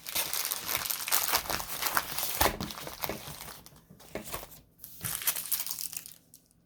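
Plastic packaging of a diamond-painting kit crinkling as it is handled. The crinkling is dense for about the first three seconds, then comes as a few separate crinkles and dies away near the end.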